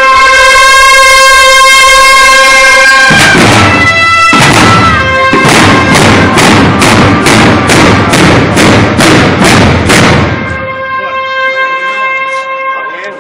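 Procession clarines (valveless bugles) hold one long loud note, then drums join with a steady beat of about two strokes a second while the clarines keep sounding. Near the end the drums stop and a softer held clarín note remains.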